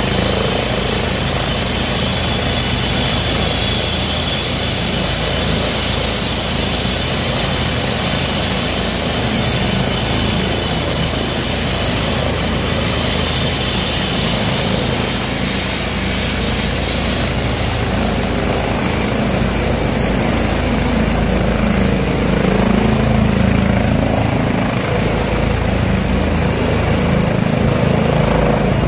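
Airbus H135 helicopter running on the ground with its twin turbines and rotor turning: a steady rotor beat under turbine noise, with a high thin whine joining about halfway through. It grows a little louder over the last several seconds as power comes up and it lifts off into a low hover.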